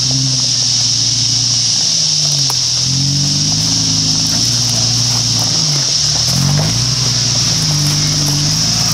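Toyota 80 Series Land Cruiser engine revving up and down over and over as the 4WD crawls through deep ruts, with a steady high hiss behind it.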